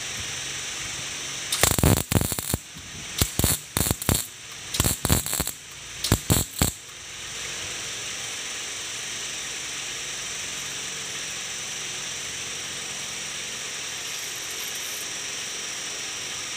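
Stick (arc) welder crackling in a string of short bursts as the electrode strikes and tacks a motorcycle handlebar tube, from about a second and a half in until about seven seconds in. After that only a steady hiss remains.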